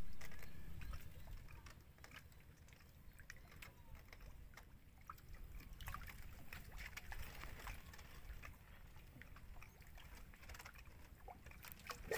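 Faint water lapping and sloshing around a small wooden canoe inside a net fish trap, with scattered light clicks and taps. It starts louder and dies down over the first two seconds.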